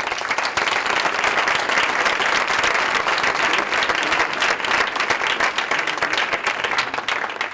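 Audience applauding in a hall: many hands clapping together, sustained, then tailing off near the end.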